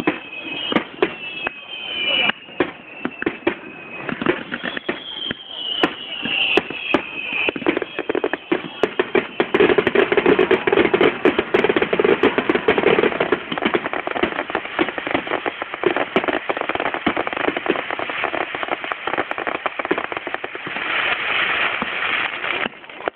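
Aerial fireworks display: shell bursts banging in quick succession, with several whistles falling in pitch in the first seven seconds. From about eight seconds on, the bursts give way to a dense, continuous crackling.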